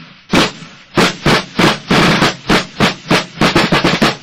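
Solo drum music: sharp drum strokes in a quick, uneven rhythm, some grouped closely together.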